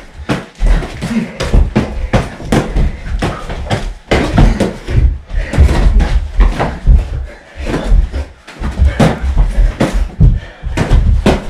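Boxing gloves landing punches in a fast, irregular flurry of smacks, over heavy thuds of feet on the floor, in a small room.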